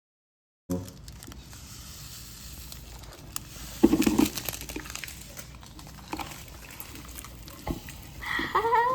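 Slime being squished and handled by hand, giving crackly clicks and soft squelches, with one louder squelch about four seconds in. A cat starts meowing near the end.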